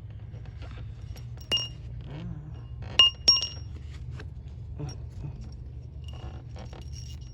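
Small metal parts clinking and ringing as they are handled: a few sharp clinks, the loudest two close together about three seconds in, with lighter taps, over a steady low hum.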